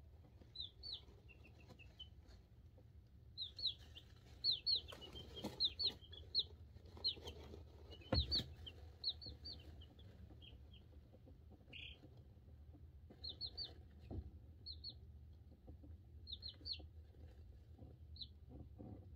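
Two-week-old chicks (Cream Crested Legbar, Buff Orpington, Black Sexlink and silkie) peeping in short high chirps, often two or three in quick succession, busiest in two spells with quieter gaps. A few soft knocks come in between.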